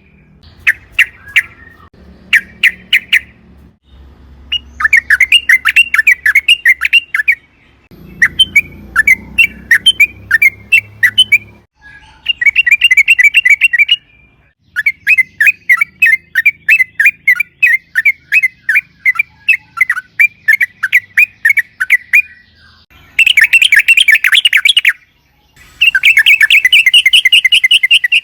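Yellow-vented bulbul singing in long, rapid chattering runs of notes, several phrases in a row with short pauses between them.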